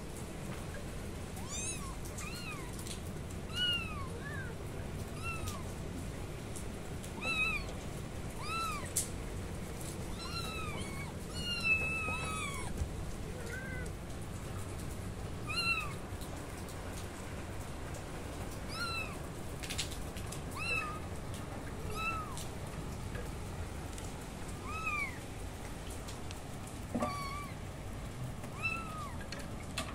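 Several kittens meowing over and over: short, high-pitched mews that rise and fall, one after another and sometimes overlapping, over a steady background hiss.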